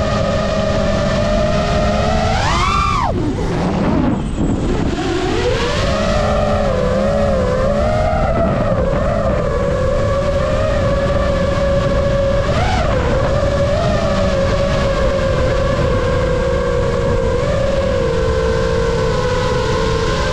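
Five-inch FPV quadcopter (iFlight Nazgul Evoque F5X) in flight: the brushless motors and propellers whine over a rush of wind. About two to three seconds in, the pitch sweeps sharply up and then drops away as the throttle is punched and cut. It then climbs back and holds near-steady with small wobbles.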